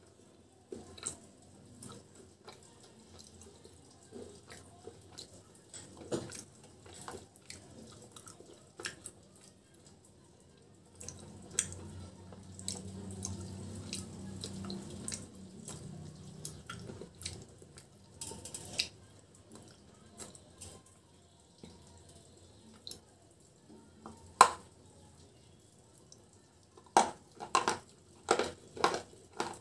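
Close-miked handling and eating sounds: scattered light taps, clicks and scrapes on clay pots, with a low hum for several seconds in the middle. Near the end comes a quick run of crisp crunches as brittle white chips are bitten.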